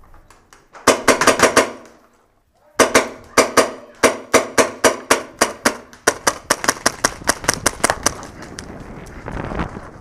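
Paintball marker fired rapidly close by. A quick string of about seven shots, a pause of about a second, then a steady stream of shots at about four or five a second that stops about eight seconds in.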